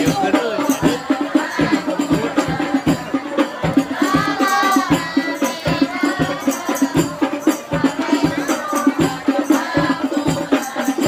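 Hadroh ensemble of frame drums (rebana) with jingles, playing a fast, steady rhythm, and a voice singing over it briefly about four seconds in.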